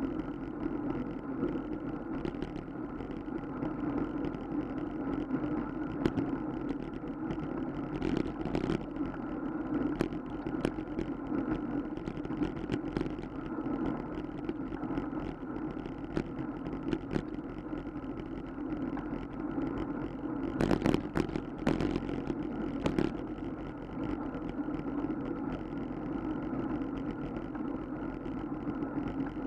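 Steady road rumble and wind noise on a camera riding along with a bicycle over pavement, with bursts of sharp rattling over bumps about eight seconds in and again around twenty-one seconds in.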